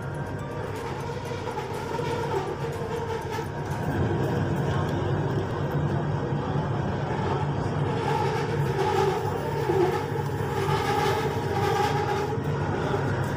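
Kelana Jaya Line LRT train running along elevated track, heard from inside the car: a steady running noise with a low motor hum. It gets louder about four seconds in as the train picks up.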